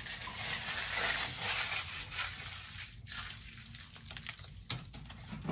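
Protective plastic film being peeled and crumpled off a new washing machine: a crackling rustle, loudest for the first three seconds, then fainter, with a couple of small knocks near the end.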